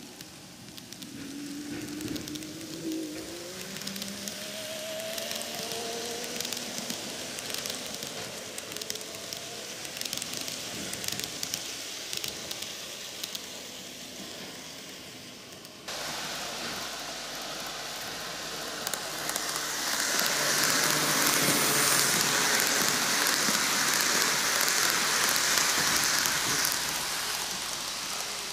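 N-gauge model trains, a KATO Tokyu 5000 series and a Greenmax Tokyu 2020 series, rolling on plastic track with a steady crackly rattle of wheels on rails and a faint wavering motor whine in the first few seconds. After an abrupt change about halfway, the rattle grows louder as the trains come toward the microphone.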